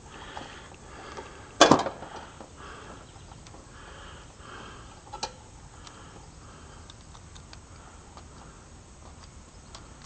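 Hands handling a dual run capacitor and pushing wire spade connectors onto its terminals: a loud short clatter nearly two seconds in, a smaller sharp click a few seconds later, and a few faint ticks.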